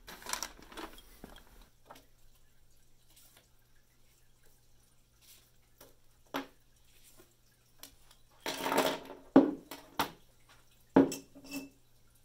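Handling craft supplies on a wooden tabletop: paper cards dropped and slid about, and pens, markers, scissors and a ruler set down with a few sharp clacks and a short clatter in the second half.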